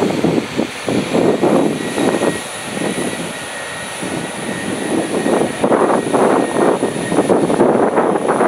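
Irish Rail 22000 class diesel multiple unit pulling away under power, its underfloor diesel engines running, mixed with gusty wind buffeting the microphone. A faint steady high whine sets in about a second in.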